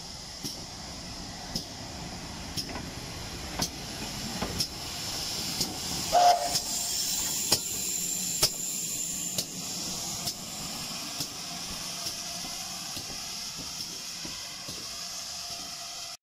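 GWR Modified Hall steam locomotive Wightwick Hall moving slowly at close range: a steady hiss of steam with a regular sharp click about once a second. A brief pitched tone about six seconds in is the loudest moment.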